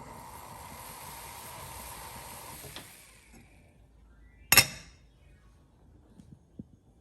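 A steady hiss that fades away about three seconds in, then one sharp knock with a short ring about a second and a half later, and two faint ticks near the end.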